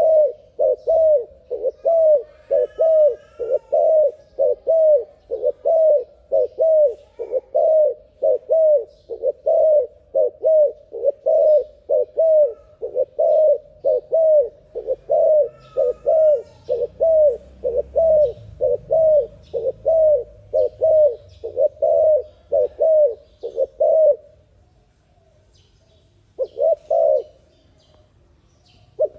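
Terkukur dove (spotted dove) cooing in a fast, steady run of short notes, about two a second. Near the end the calling stops, with one brief burst of coos in the pause. Faint chirps of other small birds are heard in the background.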